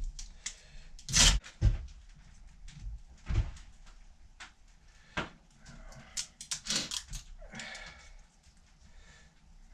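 Small parts being handled at a workbench: little connectors being fitted onto battery cable ends. There are a few sharp clicks and knocks, loudest in the first two seconds, and a rustle near the end.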